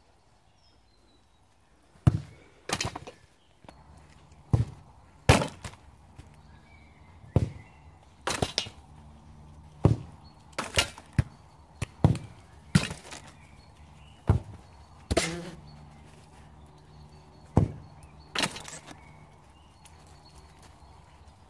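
Footballs being kicked one after another: a string of sharp thuds, about a second or two apart and some in quick pairs, as the boot strikes the ball and the ball lands or hits something.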